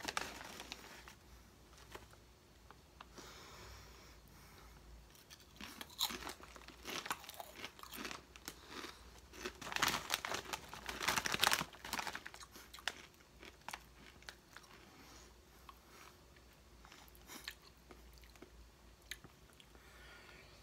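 A person biting and chewing ridged Ruffles Double Crunch Hot Wings potato chips: a run of crisp crunches, loudest and thickest about ten to twelve seconds in, then thinning out toward the end.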